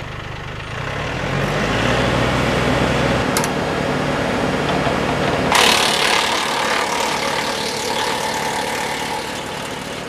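Tractor-driven Woodland Mills WC68 PTO wood chipper running and chewing branches into chips, a coarse shredding noise over the tractor engine. It grows louder from about a second in, surges sharply about halfway through, then slowly eases off.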